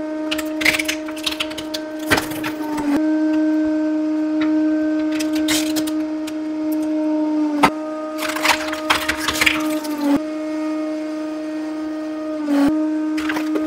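Hydraulic press running with a steady droning hum that sags in pitch several times as it comes under full load. Over it, objects being crushed give clusters of sharp cracking and snapping.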